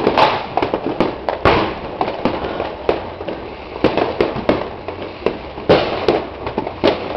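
Many fireworks going off at once: a dense, irregular run of bangs and pops with several louder booms among them.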